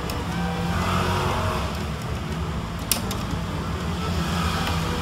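Steady low background rumble, like road traffic, with a sharp click about three seconds in as a screwdriver works on the TV's metal chassis.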